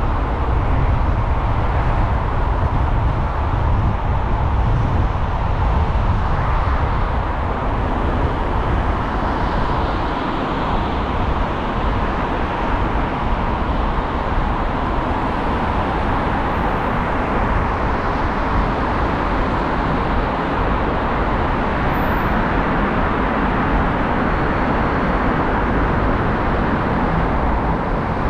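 Steady road noise from a car driving in city traffic: continuous tyre noise with a low rumble, no sudden events.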